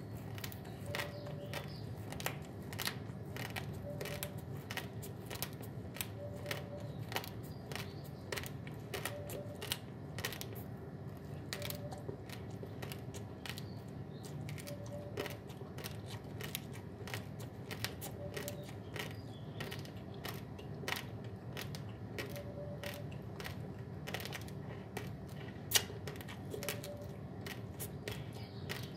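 Raw, uncooked long-grain basmati rice being chewed close to the microphone: dense, irregular crisp crunches and cracks, several a second, with one sharper crack near the end.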